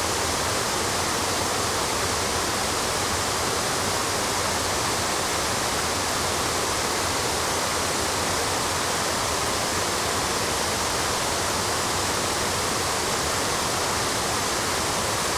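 Water rushing steadily down a waterfall of granite cascades, an even, unbroken roar of falling water.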